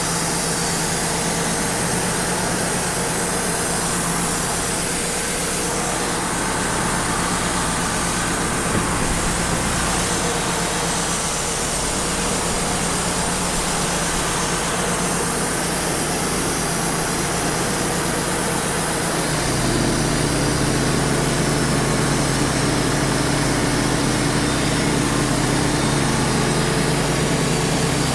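Wood-Mizer LT35 portable sawmill running, its engine note steady under a continuous noisy rush from the band saw and sawdust blower. About two-thirds of the way through, the engine note changes and grows a little louder.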